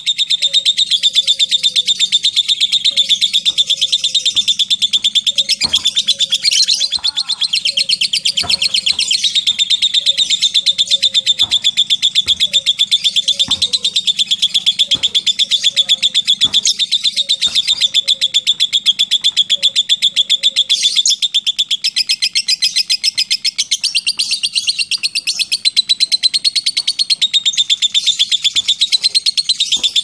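Lovebird singing a long 'ngekek': a continuous, rapid, high chattering trill held without a break for about twenty seconds, then wavering up and down in pitch near the end. Under it for the first two-thirds, a fainter, lower short chirp repeats about once a second.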